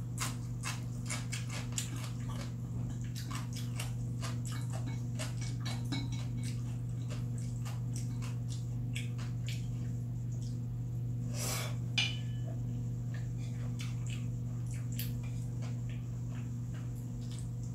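Eating sounds: wooden chopsticks clicking and scraping against a ceramic bowl and a metal pot lid while noodles are picked up and chewed, many small clicks with one louder one about twelve seconds in. A steady low hum runs underneath.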